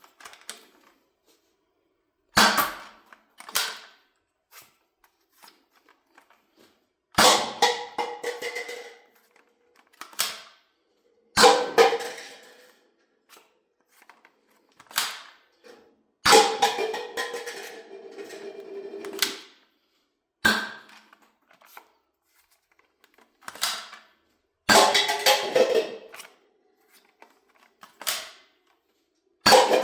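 Toy foam-dart blasters firing: about a dozen sharp shots at irregular intervals, some trailing on for a second or more.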